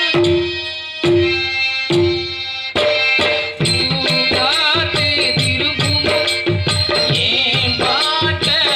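Music with hand drums and a melodic instrument: three pitched drum strokes about a second apart over held notes, then a fast, steady drum rhythm under a wavering melody from about three and a half seconds in.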